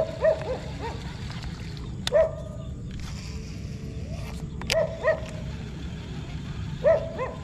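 A dog barking in short, high barks, one to three at a time, every two seconds or so.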